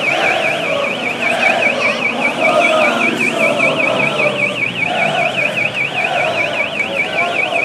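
An electronic alarm warbling rapidly up and down, about four to five times a second without a break, over a street crowd chanting.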